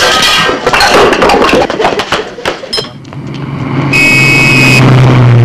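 A scuffle with crashing and thudding for the first few seconds, then a car engine starting up and running louder, with a short high squeal about four seconds in.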